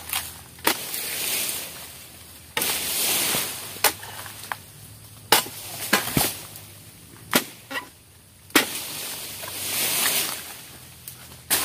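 Long-poled oil palm harvesting chisel (dodos) chopping into frond bases and bunch stalks on a palm trunk: about seven sharp strikes at irregular spacing. Between them come stretches of rustling as cut fronds shift and fall.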